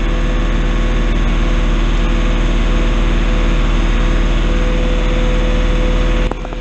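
New Holland TN70 tractor's diesel engine running steadily, heard from inside the cab, with a constant whine riding over it. The level drops abruptly near the end.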